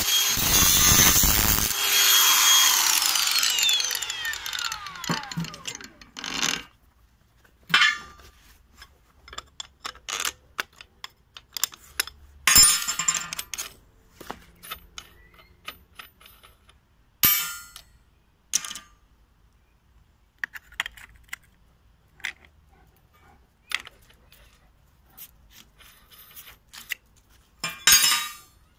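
Makita DGA504Z 18 V brushless angle grinder cutting steel plate, stopping about two seconds in, its disc spinning down with a falling whine. After that, scattered clicks and knocks as the grinder is handled and its cutting disc changed with a pin spanner.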